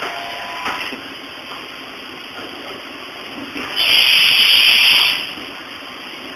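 Haas VF-2 vertical machining center milling steel with a carbide insert cutter: steady cutting noise with a faint whine, and a loud hiss lasting about a second a little past the middle.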